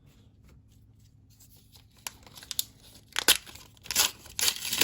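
A trading-card pack wrapper being torn open and crinkled by hand. It starts quietly about two seconds in and grows into several sharp rips and crackles towards the end.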